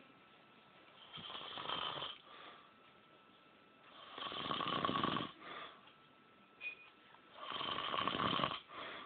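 An old man snoring very loudly in his sleep: three long snores about three seconds apart, each followed by a short, softer breath sound.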